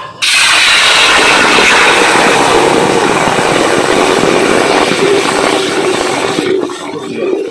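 Ground tomato puree hitting a hot pan and sizzling loudly. The sizzle starts suddenly and dies down near the end.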